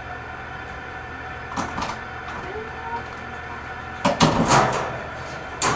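Sharp knocks and metallic rattles of a wire dog crate being handled, a few early on and a louder cluster about four seconds in, over a steady background hum.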